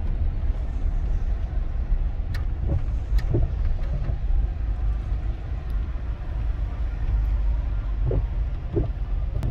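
Steady low rumble of car engines and traffic heard from inside a car, with a couple of faint clicks a few seconds in.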